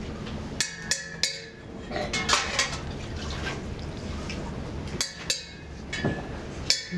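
A ladle clinking against an enamel pot and bowls as liquid is ladled and poured into the bowls, with several sharp clinks.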